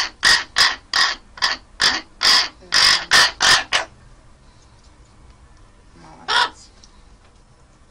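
A raven calling: a quick run of about eleven short calls, about three a second, then a pause and one more call about six seconds in.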